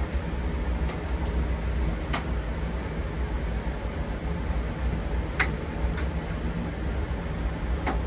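Passenger lift car in motion: a steady low hum and rumble, with a handful of sharp clicks and rattles, the loudest about five and a half seconds in.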